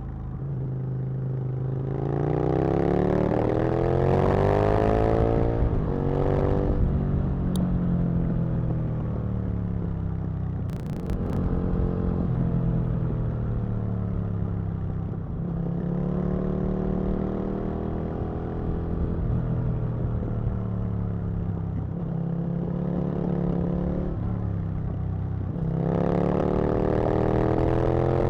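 Aprilia RSV Mille's 60-degree V-twin engine pulling hard through the gears, the revs climbing and then dropping at each shift or roll-off several times over. The strongest pull comes a couple of seconds in, and another near the end.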